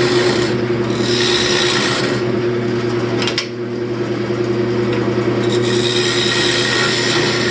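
Wood lathe running steadily while a turning tool cuts the spinning wooden bowl blank, a harsh scraping hiss of shavings coming off in two stretches, in the first couple of seconds and again near the end.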